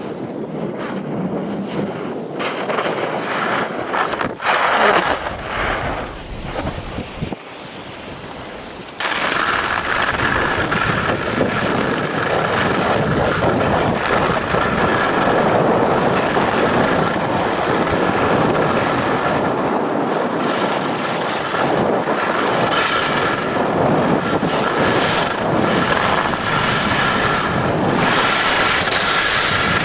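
Snowboard edges carving and scraping over groomed snow, with wind on the microphone: a rushing scrape that becomes louder and steadier about nine seconds in.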